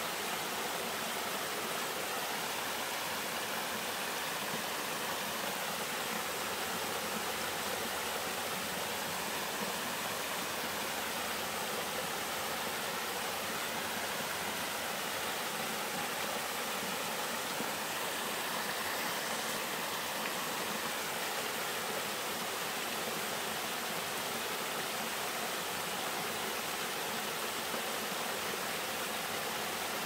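Small five-tier waterfall, thin streams of water spilling down a stepped series of rock ledges, making a steady rushing splash that doesn't change.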